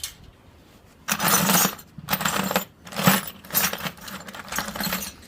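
Loose metal hardware (bolts, nuts and screws) clinking and jangling as it is sifted by hand in a bucket. A single click at the start, then from about a second in several rattling bursts.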